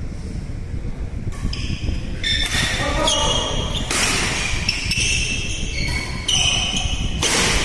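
Badminton doubles rally: court shoes squeaking repeatedly on the court mat and racket strokes on the shuttlecock, the sharpest stroke near the end, over a steady low rumble.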